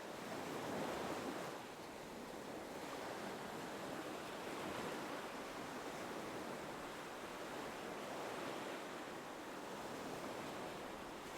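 Gentle ocean waves washing in a soft, steady hiss, swelling slightly about a second in.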